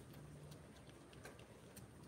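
Cat licking food from a spoon: a few faint, irregular clicks of its tongue over near silence.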